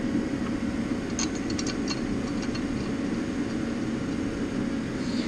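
Steady low mechanical hum, with a few light metal clicks between one and two seconds in as small parts are handled on the cylinder head.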